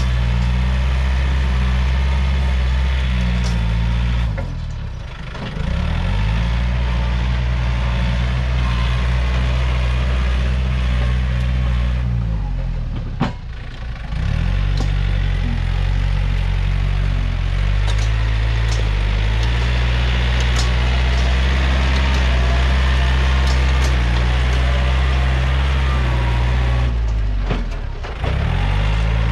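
Yanmar EF514T tractor's diesel engine running steadily at speed. Its pitch drops and climbs back three times: about five seconds in, near the middle, and near the end.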